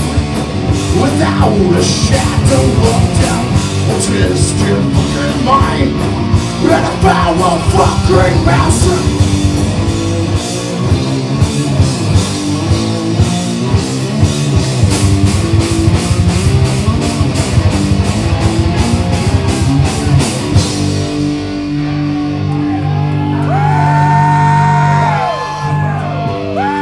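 Live heavy rock band playing loud, with distorted guitars, fast driving drums and some shouted vocals. About 21 seconds in the drums stop and the song ends on a held, ringing chord, with a guitar note bending up and down over it before it cuts off.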